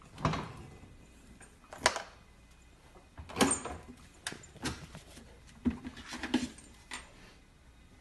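Scattered knocks, clicks and rattles of a refrigerator's door and plastic shelves as a husky puppy clambers into the fridge, about eight irregular bumps.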